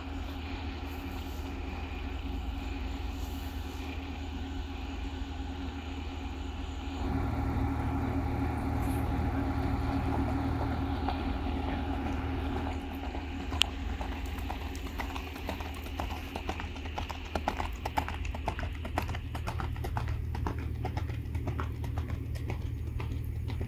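A black stallion's hooves clip-clopping at a trot on a gravel lane, the hoofbeats coming through clearly from about halfway in, over a steady low hum.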